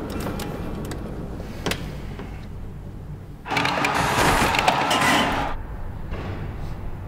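A para hockey sledge scraping and skidding on ice for about two seconds midway, over a low steady hum, with a single sharp click earlier.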